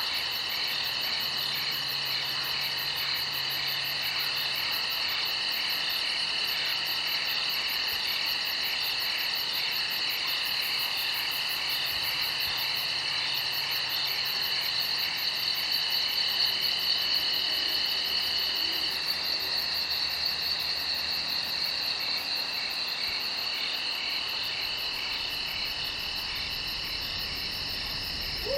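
Night chorus of crickets chirping steadily, several trilling at different pitches at once. One of the steady trills drops out about two-thirds of the way through and comes back near the end.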